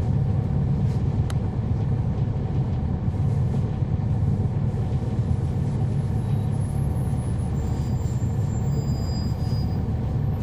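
Cummins ISL9 inline-six diesel of a NABI 40-SFW transit bus running steadily, heard from inside the bus as an even low drone.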